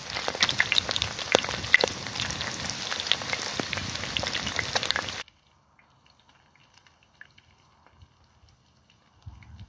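Breaded chicken pieces sizzling and crackling in hot oil on a sadj, with a dense spatter of sharp pops. It cuts off suddenly about five seconds in, leaving only faint scattered ticks.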